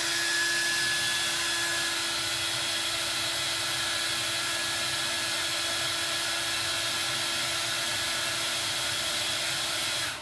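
Handheld hair dryer running with a steady rush of air and a steady whine, blowing hot air onto a bag's plastic zipper teeth to soften them. It spins up at the start and is switched off near the end.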